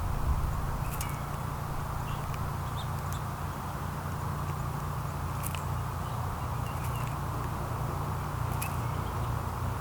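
Outdoor ambience of small birds at a backyard feeder: scattered short chirps and clicks over a steady low rumble.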